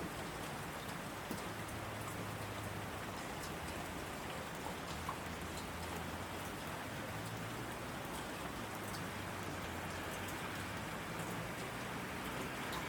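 Heavy rain falling on asphalt: a steady, even hiss with scattered sharp ticks of single drops hitting the road surface.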